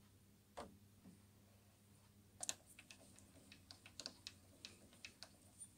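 Faint, irregular clicks and taps of a hand handling the mini lathe's metal toolpost and parting-off blade: one knock about half a second in, then a scattered run of light clicks from about two and a half seconds on.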